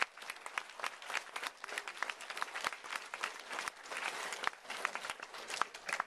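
Audience applauding: a steady patter of many hands clapping.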